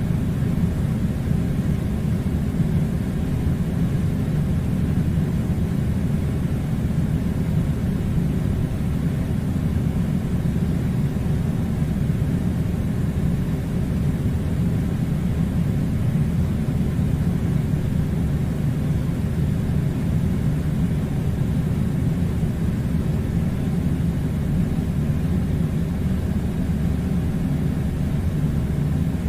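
Air conditioner running with a steady, low rumbling hum that does not change.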